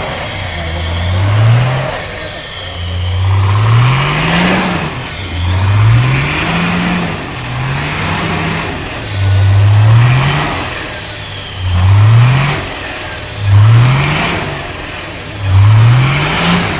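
Nissan Patrol's 3.3-litre six-cylinder turbodiesel revved hard again and again, about eight times, each rise in pitch falling back before the next, as it strains under load trying to pull another vehicle free.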